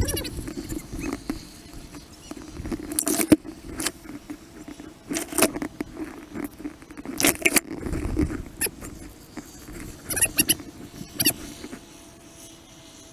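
Field audio played at four times speed: short, high-pitched, chipmunk-like squeaks of sped-up voices among scattered sharp clicks and rustles.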